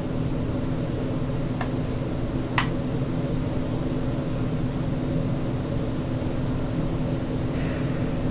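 Steady machine-like hum and hiss, with two small clicks about one and a half and two and a half seconds in.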